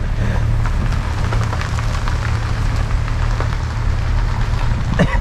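Van running slowly, a steady low engine rumble heard from inside the cabin, with a light scattered crackling over it.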